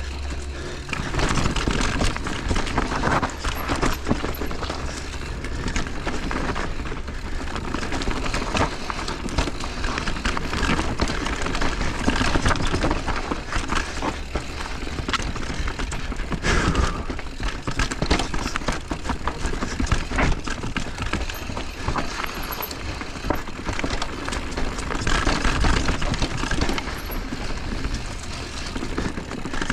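Mountain bike riding down a rocky technical trail: a continuous clatter of tyres, chain and suspension over rock, with frequent sharp knocks.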